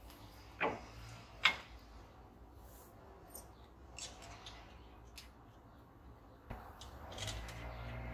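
Light metallic clicks and knocks from a 2011 Ford F-150's new front brake caliper being worked by hand onto its pads and rotor. The two sharpest knocks come about half a second and a second and a half in, with a few fainter ticks later.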